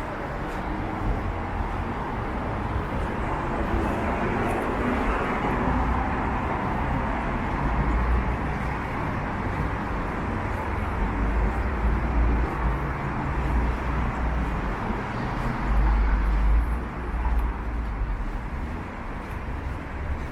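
Steady city street traffic noise, with strong gusts of wind buffeting the microphone in deep rumbles several times.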